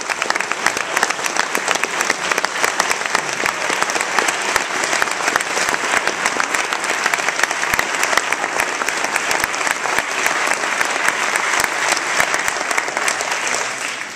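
Concert audience applauding: dense, steady clapping that starts to thin out right at the end.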